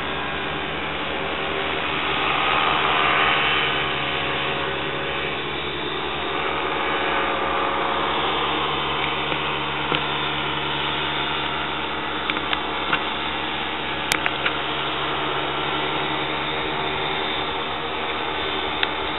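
Paramotor engine and propeller droning steadily in flight, swelling a few seconds in. A handful of sharp clicks come about two-thirds of the way through.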